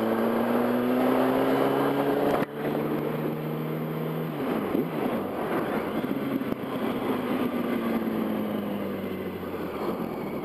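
Yamaha R1's inline-four engine under way on the street, its note rising as it accelerates. About two and a half seconds in the sound drops away sharply for a moment, then the engine runs on, its pitch falling toward the end as it eases off.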